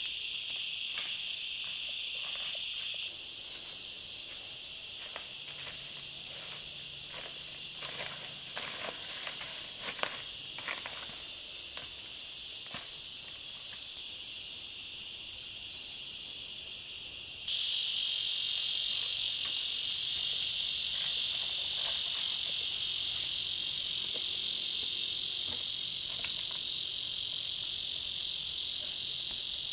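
Steady high-pitched drone of forest insects, crickets or cicadas, with a scatter of short clicks and knocks through the first half. A little past halfway the insect drone suddenly grows louder.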